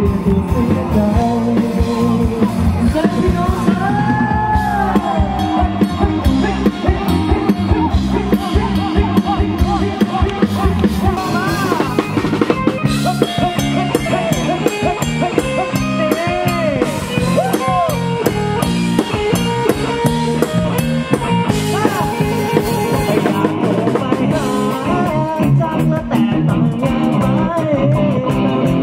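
Live rock band playing loudly through the stage speakers: a drum kit keeping a busy beat, electric guitar, and a sung melody over the top.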